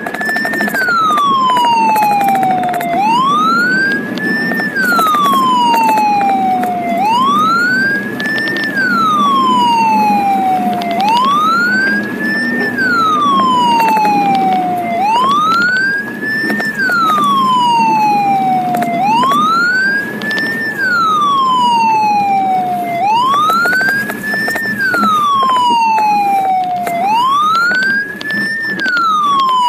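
Ambulance siren wailing, each cycle rising quickly and then falling more slowly, repeating about once every four seconds. Underneath it is the steady rumble of the ambulance driving, heard from inside the cab.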